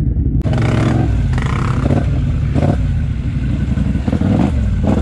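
Quad ATV engine running under load, revving up in short pulses, with scattered clattering knocks from the machine jolting along the ruts.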